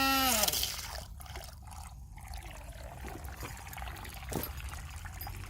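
A short pitched call ends about half a second in, followed by faint trickling water.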